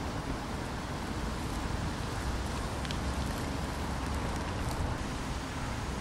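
Steady wind buffeting the microphone: a fluctuating low rumble under a constant hiss, with a couple of faint ticks.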